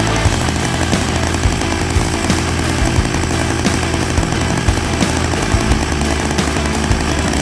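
Pro Mac 610 chainsaw's 60cc two-stroke engine running.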